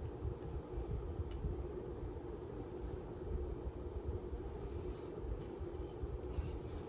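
Quiet handling of a small ceiling-fan pull chain switch, with a few faint clicks as the new pull chain bead is worked into place with small tools.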